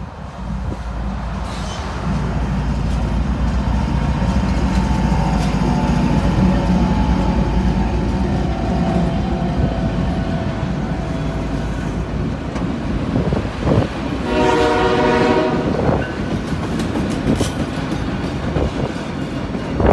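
Union Pacific auto-rack freight train passing close by: the steady rumble of its diesel locomotives gives way to the rumble and rattle of the auto-rack cars rolling over the rails. A train horn sounds once for about a second and a half, a little past the middle.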